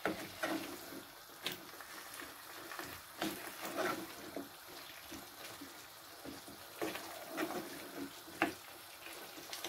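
Wooden spoon stirring sliced potatoes through a wet masala gravy in a metal pan: soft wet sloshing, with irregular scrapes and knocks of the spoon against the pan.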